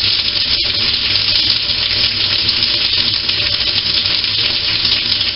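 Water spraying steadily from a shower head, a loud even hiss.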